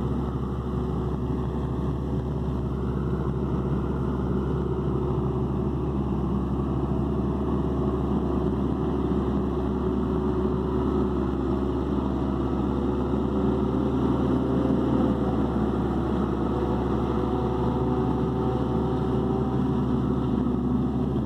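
CBT tractor's diesel engine running steadily under heavy load, bellowing deep as it powers a forage harvester chopping corn for silage and blowing it into a trailer.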